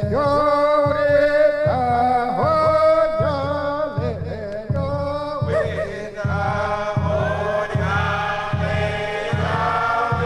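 Field recording of a Chickasaw tick dance song: a male lead singer chants the call, and a group of voices comes in with the response about halfway through. A steady beat runs underneath, about one pulse every three-quarters of a second.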